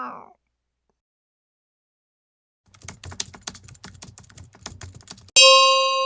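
The tail of a cat's meow, then a quick clatter of clicks like typing on a keyboard for about two and a half seconds, ending in a sudden bell-like ding that rings on and slowly fades.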